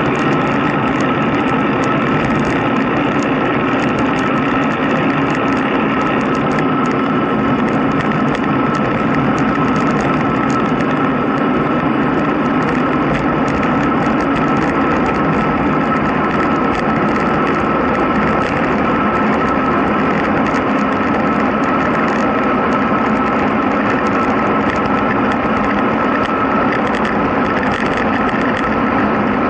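Steady rush of wind and road noise from riding downhill at speed, with a constant high tone running through it and a fine crackle on top.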